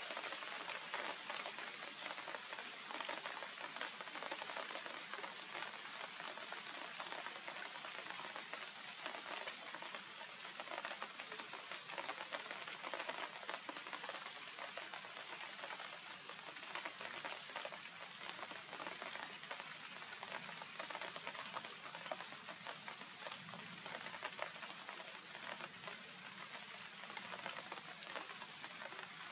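Steady crackling hiss of outdoor background noise, with about ten short, faint, high-pitched chirps scattered through it.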